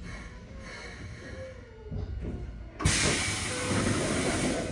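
Keikyu 1500-series train coming to a stop: a low wheel rumble, a couple of dull knocks, then about three seconds in a sudden loud rush of compressed-air hiss from the train's air system that runs on steadily.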